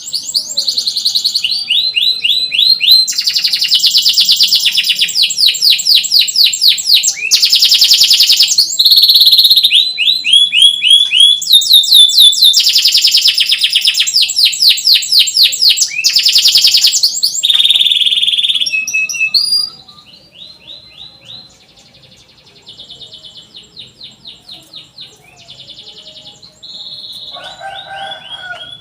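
Domestic canary singing a long, loud song of rapid trills and chirps, one rolled phrase after another. About two-thirds of the way through the singing drops to a much quieter level but keeps going.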